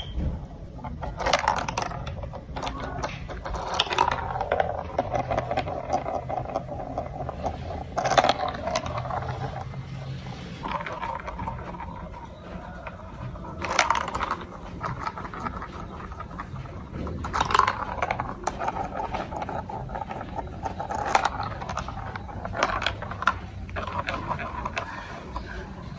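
Plastic marble-run building blocks and marbles being handled: sharp plastic clicks every few seconds over a steady rattling noise.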